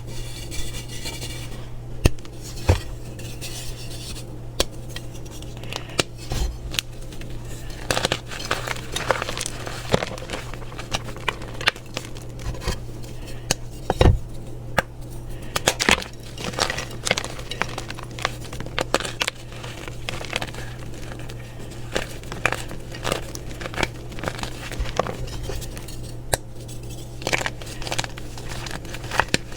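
Reformed chalk blocks being crushed and crumbled by hand: a dense, irregular run of crisp crunches and crackles. The blocks are extra crunchy, though softened when they were reformed. A steady low hum runs underneath.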